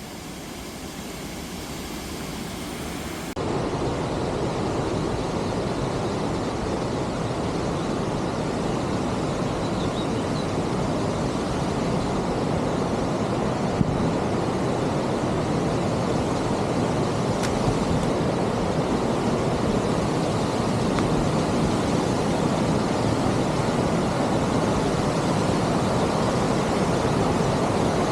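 Waterfall: a steady rush of falling water, with no pitch or rhythm. It is quieter at first, jumps louder a few seconds in, then slowly grows louder.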